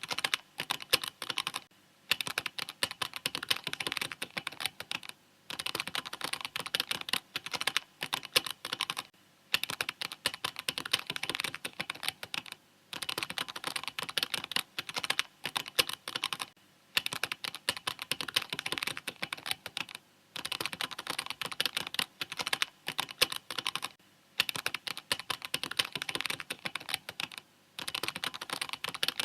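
Mechanical keyboard typing in fast, steady runs of key clicks, broken by short pauses every few seconds.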